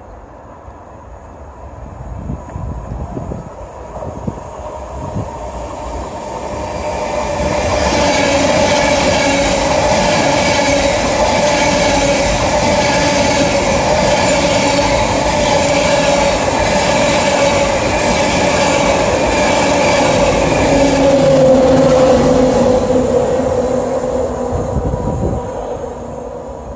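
Intercity express passenger train passing through a station at speed. It builds as it approaches, then a loud steady rush of wheels on rail with a whining tone and clatter over the rails as the coaches go by, fading as it moves away.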